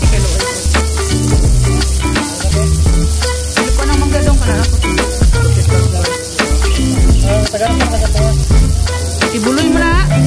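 Beef sisig sizzling on a hot iron sizzling plate as it is stirred with a fork, over background music with a bass line and a beat.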